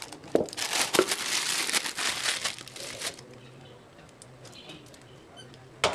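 Thin plastic piping bag filled with batter crinkling and rustling as it is handled, with a few sharp crackles, for about three seconds. It goes quieter after that, and one short crinkle comes near the end.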